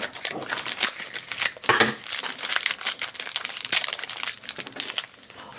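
Crinkly yellow foil wrapper being peeled off a toy blind pack and crumpled in the hands: a dense run of crackling and crinkling that dies down shortly before the end.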